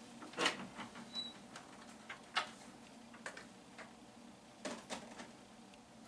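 Faint, scattered knocks and clatters of a clear plastic storage box being handled and put away in a closet as a wooden door is opened, with a short squeak about a second in.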